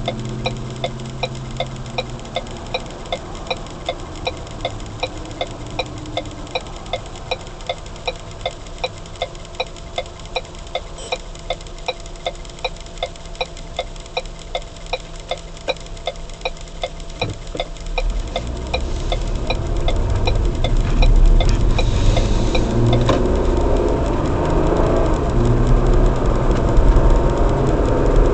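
Car's turn-signal indicator ticking steadily, about two clicks a second, over a low engine idle. About two-thirds of the way through the ticking stops and engine and road noise grow louder as the car pulls away.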